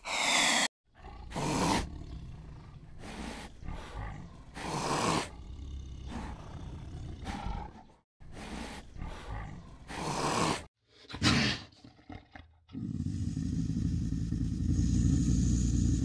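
Lion roaring in a series of separate roars and grunts, one after another with short gaps. Near the end it gives way to a steady low background rumble.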